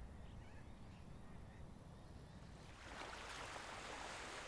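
Faint outdoor ambience with a few small bird chirps. About three seconds in, a soft rushing wash of sea surf on the shore swells up.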